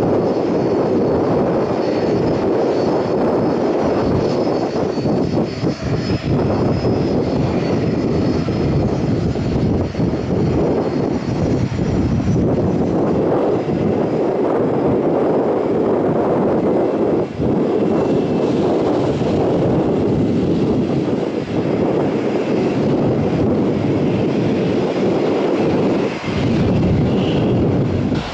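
Jet airliner's engines running with a loud, steady noise, a thin high whine above it that fades about twelve seconds in.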